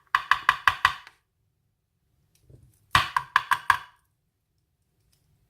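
Rapid ringing metallic knocks from a lock cylinder being tapped against a hard surface to shake out stuck pins: a run of about six in the first second, then five more about three seconds in.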